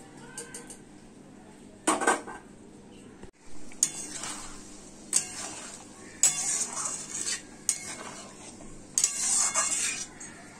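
Flat metal spatula scraping and clattering against a metal kadai while stirring wet moong dal and pointed gourd, in separate bursts every second or two, the longest near the end.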